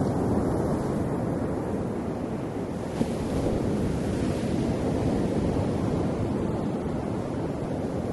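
Ocean waves washing ashore: a steady rush of surf that swells at the start and eases off slowly toward the end, with a brief tick about three seconds in.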